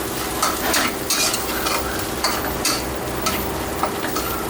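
Red curry paste frying in oil, sizzling steadily while it is stirred around the pan in repeated scraping strokes, about two a second.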